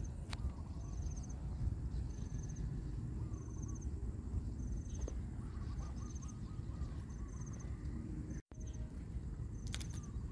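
Outdoor ambience: a short, high, pulsed chirp repeating about once a second, with a brief warbling bird call around the middle, over a low steady rumble.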